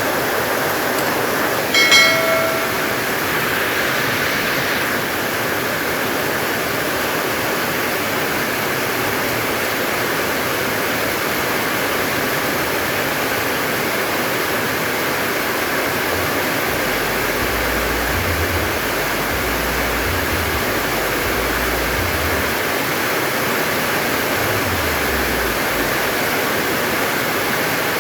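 Heavy rain pouring in a dense, steady hiss. About two seconds in, a short pitched call sounds once over it.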